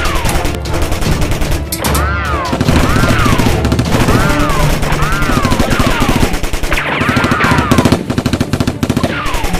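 Automatic gunfire sound effects: rapid shots in long, dense bursts, as from a submachine gun. From about two seconds in, a high tone that rises and falls about once a second plays over the shooting.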